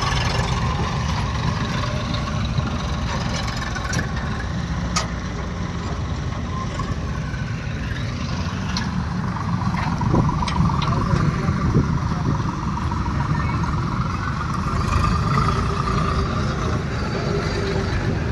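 Eicher 380 tractor's diesel engine running steadily under the load of a heavy trolley, with a few sharp clicks and knocks now and then.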